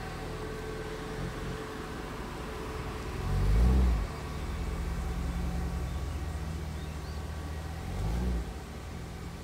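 Mercedes-Benz 500SL's 5.0-litre DOHC V8 (M119) running through a one-off stainless-steel exhaust as the car drives slowly. The engine note swells with two short bursts of throttle, a louder one about three seconds in and a shorter one about eight seconds in, each rising and falling in pitch.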